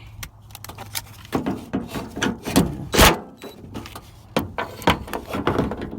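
Irregular metal clicks and knocks of the door handle's mounting bolts being tightened inside a car door, with one heavier knock about three seconds in.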